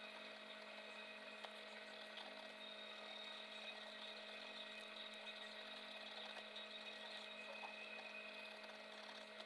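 Faint room tone: a steady low electrical hum and hiss with a few soft ticks.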